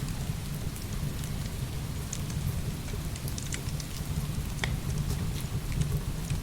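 Heavy rain pouring steadily with a deep continuous rumble, over scattered sharp pops and crackles of burning firewood; one louder pop comes about two-thirds of the way through.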